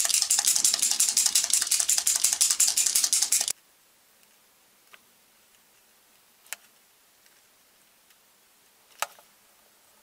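Edding 780 paint marker being shaken hard, its mixing ball rattling rapidly inside the barrel to mix the black paint; the rattle stops abruptly about three and a half seconds in. After that there is near silence with a few faint clicks as the pen tip works on the figure's plastic boot.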